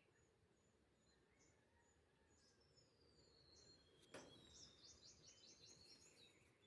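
Near silence with faint small birds chirping, a quick run of high notes about four and a half seconds in, and a single soft knock just after four seconds.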